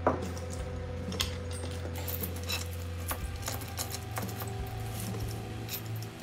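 Chain of a soil pipe cutter clinking and knocking as it is wrapped around a geode, with scattered sharp metal clicks, the loudest right at the start, over a steady low hum.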